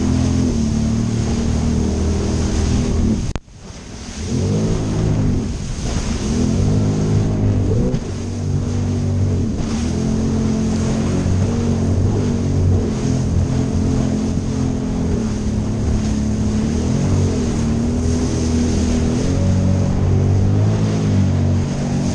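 Sea-Doo Spark personal watercraft's three-cylinder engine running hard over choppy water, its pitch rising and falling repeatedly with throttle and wave impacts, over splashing spray and wind noise. About three seconds in the whole sound cuts out suddenly for a moment, then comes back.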